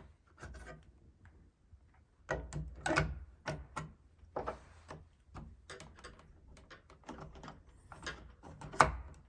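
Irregular clicks and knocks of a Kwikset electronic deadbolt's interior cover being slid back on over the lock and handled into place. There is a louder cluster about two to three seconds in and a sharp knock near the end.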